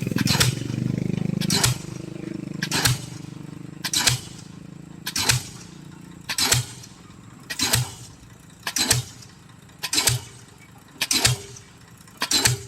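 Pile driver hammering a pile in a steady rhythm, one sharp strike about every 1.2 seconds. An engine runs underneath, loudest in the first couple of seconds and then easing.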